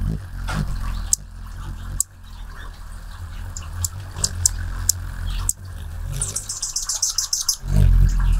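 Anna's hummingbird wings humming low and steadily as it hovers close to the microphone, fading in the middle and coming back loud near the end. Sharp single high chip notes sound over it, and a fast chattering run of high notes comes just before the hum returns.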